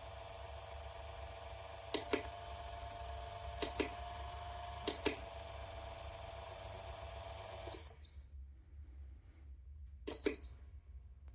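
Beper P206VEN600 wall fan running with a steady hum, its electronics giving a short high beep with a click at each button press, three times. About eight seconds in a longer beep sounds and the hum stops as the fan switches off; one more beep follows near the end.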